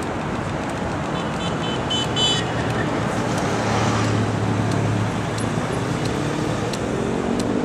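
City street traffic: a steady wash of cars and vans passing, with a low engine hum swelling about four seconds in. A quick run of high, squeaky chirps comes about two seconds in.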